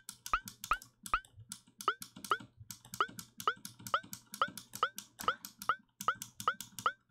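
Short, pitched percussion hits from an FM synthesizer (Ableton Operator), each a click followed by a brief tone, repeating rapidly at three or four a second with a couple of short gaps. The tone shifts between hits as the second operator's frequency ratio is changed to make it slightly less harmonic.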